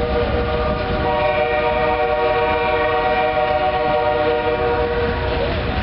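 Train air horn sounding one long chord of several tones together, held for about five and a half seconds, with the rumble of the passing passenger cars on the rails underneath.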